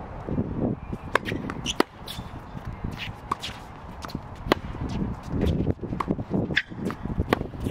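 Tennis shoes scuffing and squeaking on a hard court as a player steps around and settles into a ready stance, with scattered sharp ticks and knocks.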